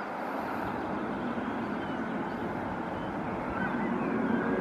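Distant Eurocopter AS365 Dauphin twin-turbine helicopter running on its pad before takeoff: a steady rush of turbine and rotor noise that grows slowly louder toward the end.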